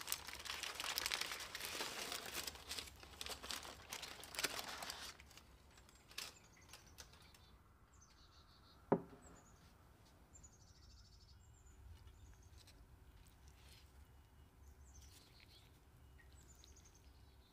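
Aluminium foil crinkling and crackling for about five seconds as it is pulled back from a roasting tray. Then it goes quiet except for one sharp click a little before halfway and faint short high chirps from small birds, about one a second.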